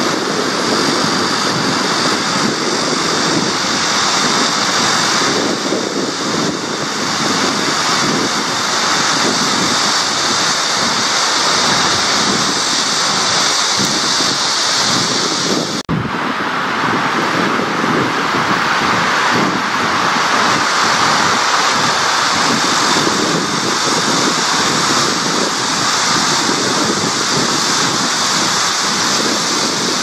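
Steady rush of wind and small waves lapping on a river shore, with a brief break about halfway through.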